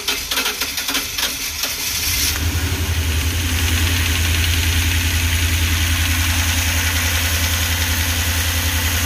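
Ford 5.4-litre V8 in a 2006 E250 van firing up on its first start after new ignition coils and spark plugs. It runs unevenly for about two seconds, then settles into a steady idle with an even pulse.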